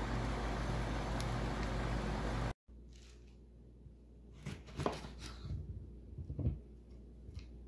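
A steady hiss with a low hum from a grill cooking whole mullet, cut off abruptly after about two and a half seconds. Then a knife cutting a lemon on a wooden board and the lemon being squeezed, heard as a few short clicks and soft thuds.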